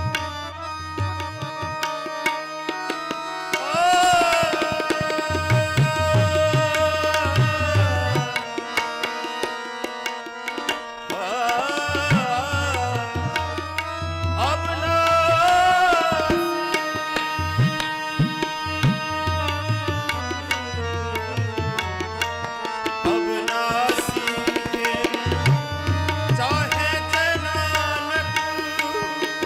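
Sikh shabad kirtan in Raag Todi: a man sings drawn-out, ornamented phrases over a steady harmonium drone, with tabla playing a rhythm underneath.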